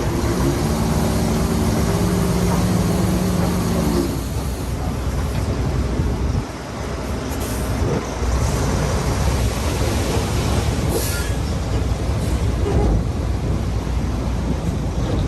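Heavy diesel earthmoving machinery, dump truck and bulldozer, running under load, a steady loud rumble and clatter. A pitched engine drone sounds over it for about the first four seconds and then stops.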